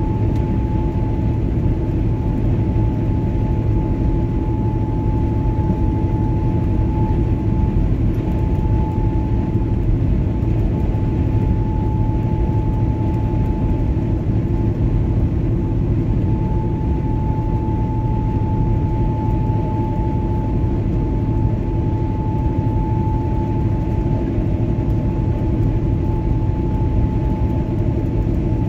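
Steady engine drone and tyre noise of a vehicle cruising at constant speed on paved road, with a thin steady whine above it.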